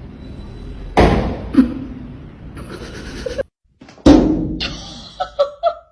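Two loud thuds, about a second in and about four seconds in, each trailing off over a second or so.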